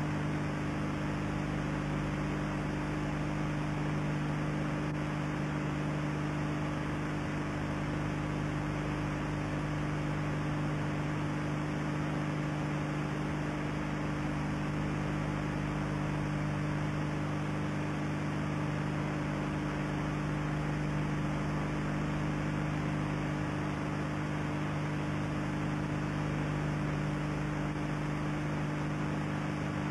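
Steady electrical hum on several stacked pitches under an even hiss, the background noise of an old videotape recording; no other sound stands out.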